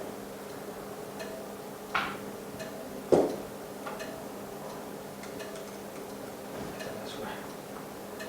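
Light, irregular clicks and taps over a steady low hum, with a sharper knock about three seconds in.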